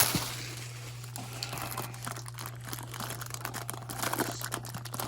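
Bubble wrap and packing cushioning being handled and pulled open: irregular crinkling and crackling, busier in the second half, over a steady low hum.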